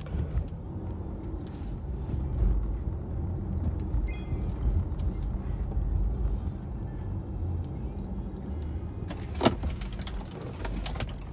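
Inside a moving Chrysler car: steady low engine and road rumble, with one sharp click about nine and a half seconds in.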